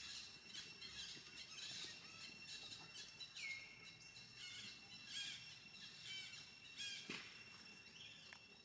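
Faint high-pitched animal calls: many short chirps and squeaks in quick succession, with one longer note about three and a half seconds in that falls and then holds. A faint steady high whine runs behind them.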